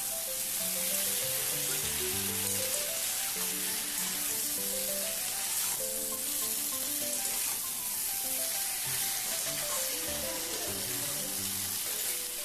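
Whole flat beans frying in mustard oil in a steel kadai with a steady sizzle, stirred with a metal spatula as coconut paste is worked in, under soft background music with a simple melody.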